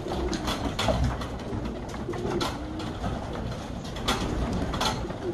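Racing pigeons cooing, with several sharp wing flaps as birds take off and land around the loft.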